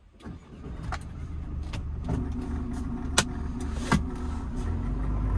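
Mercedes-Benz van's diesel engine started by its push button: it catches just after the start, and its rumble builds up and then holds steady as the van moves off, heard inside the cab. A few sharp clicks come through over it.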